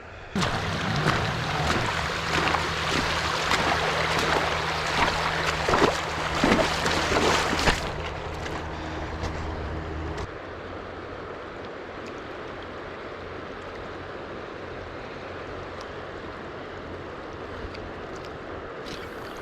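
River water rushing, with a louder, crackly stretch full of sharp clicks for the first eight seconds or so. It then settles to a steady rush.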